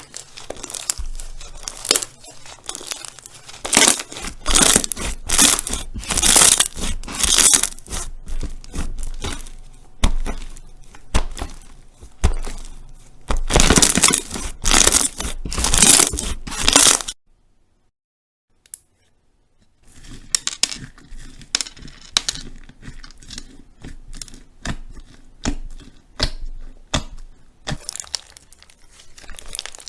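Slime being squeezed, stretched and poked by hand, giving irregular crackling, crinkling and popping sounds in bursts. It breaks off into near silence for a couple of seconds a little past the middle, then carries on more softly.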